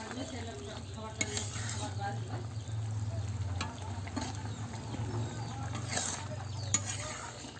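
Vegetable curry bubbling and sizzling in an iron kadai while a spatula stirs it, scraping and clicking against the pan a few times, with a low steady hum underneath.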